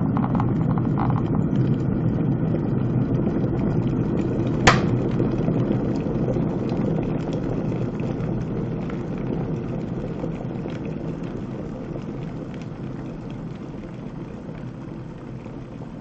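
SINBO SK 7364 2200 W electric kettle at the boil, a steady rumble of bubbling water. About five seconds in, the automatic switch-off clicks sharply once, and the boiling then dies away gradually.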